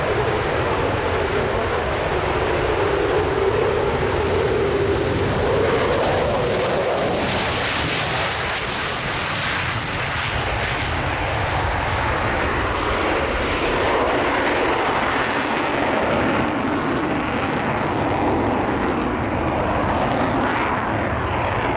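Fighter jet's engines running loud as it takes off and climbs away. A strong whine in the first few seconds gives way to a broad rushing roar, loudest about eight to ten seconds in as the jet lifts off, then easing as it climbs out.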